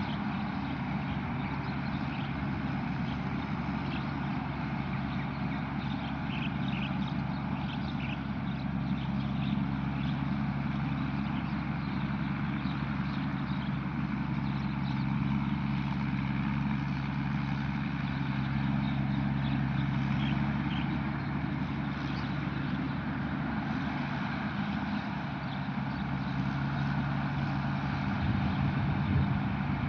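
Tamco combine harvester's Isuzu 6HK1 inline-six diesel running steadily, a low engine drone over the clatter of machinery; it eases slightly for a few seconds late on.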